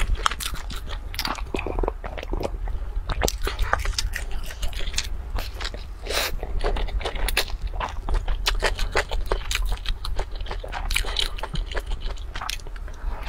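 Close-miked crunching and chewing of a crisp-fried roll: a dense run of sharp crackles as the crust is bitten and chewed.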